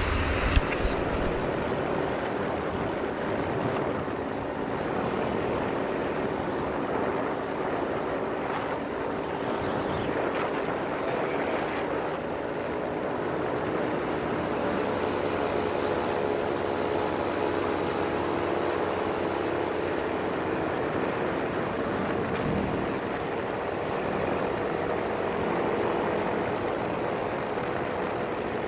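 Paramotor engine and propeller running steadily in flight, a constant drone with rushing air over the microphone. A single sharp click about half a second in.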